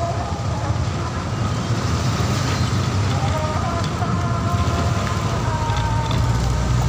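Motorbikes and motorbike-drawn tuk-tuks moving slowly in a crowd, their small engines running steadily together. Faint held tones or voices sound over the rumble.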